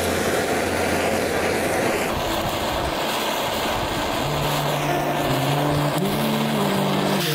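Electronic background music in a stretch of rushing, hiss-like noise with the bass tones dropped out. About four seconds in, sustained synth tones slide back in.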